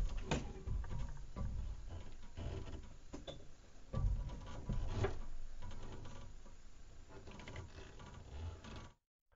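Faint, irregular clicks and knocks of someone handling things at the tractor cab while switching on the new work lights, with a louder knock about four seconds in; the sound cuts off abruptly near the end.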